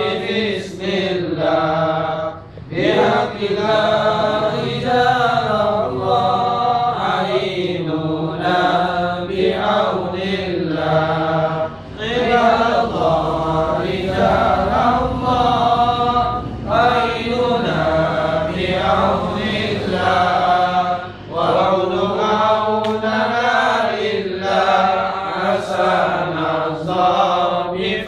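A group of men chanting an Arabic devotional litany together, read from printed sheets. The chant runs in long phrases of about nine seconds, with a brief breath pause between phrases.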